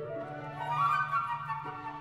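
Background music: a melody that steps down and then climbs again over a steady low sustained note.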